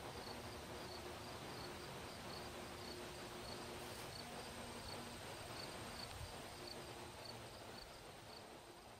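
Crickets chirping faintly, about three short chirps a second with brief pauses, over a low outdoor hiss.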